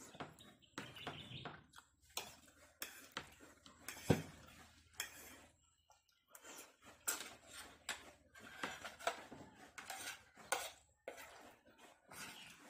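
Metal fork clinking and scraping on a ceramic plate while spaghetti is eaten, in many short irregular taps with one sharper clink about four seconds in, and noisy slurping and chewing of noodles between them.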